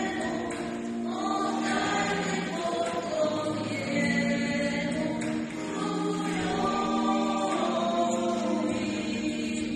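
A small mixed vocal group of one man and three women singing a Christmas carol in harmony. They hold long notes together and move to new chords every second or so, without a break.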